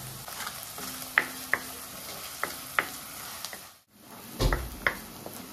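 Chopped onions and curry leaves sizzling in oil in a black iron kadai, being stirred with a wooden spatula that knocks against the pan in about half a dozen sharp taps. The sound breaks off for a moment near the middle.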